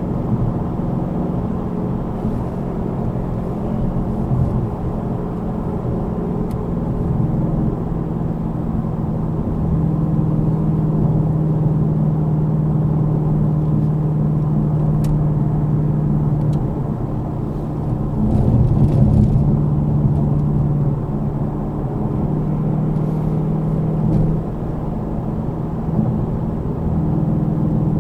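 Car driving at about 50 mph, heard from inside the cabin: a steady low hum of engine and tyre noise, which grows a little louder for a couple of seconds past the middle.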